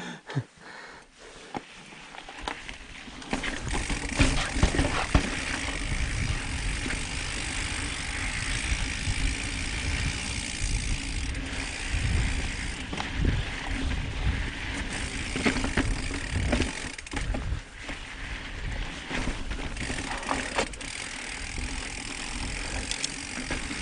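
Mountain bike riding over a dirt and rock singletrack. At first it is quieter, with the rear hub's freewheel ticking. From about three seconds in it gets louder: a steady rumble of tyres and wind, with many short knocks and rattles of chain and bike over bumps.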